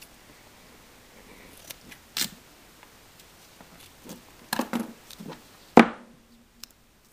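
Duct tape being pulled off its roll with a short rip about two seconds in, then several quick scissor snips through the tape and a sharp thump on the wooden floor near the end.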